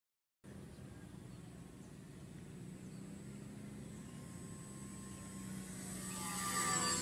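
Model PZL-104 Wilga RC plane's motor and propeller droning in low flight, starting about half a second in and growing louder as it comes close, with its pitch dropping as it passes near the end.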